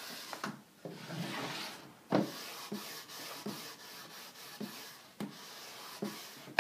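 Cloth rag rubbing dark furniture wax into a painted wooden drawer, in back-and-forth strokes along the grain. A few light knocks come between the strokes, the loudest about two seconds in.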